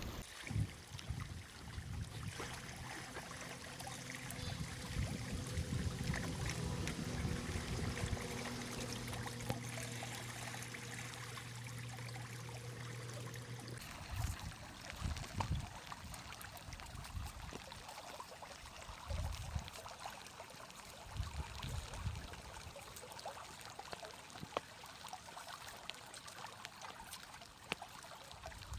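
Water running and trickling, with a steady low hum through the first half that cuts off suddenly about halfway, and scattered small clicks and knocks after that.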